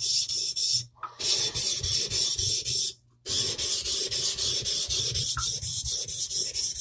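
Steel knife bevel scraping back and forth on a wet 400-grit Naniwa Chosera whetstone, in quick regular strokes about four a second, with two brief pauses near the start. The bevel is laid flat on the stone, and the strokes are thinning the wide bevel of a Moritaka Supreme honesuki with an Aogami Super core.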